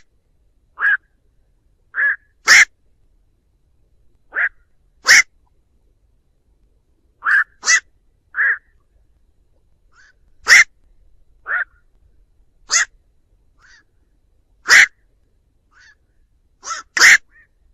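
Black-crowned night herons calling to the flock: about fifteen single short calls, coming every half second to two seconds at an uneven pace, some much louder than others.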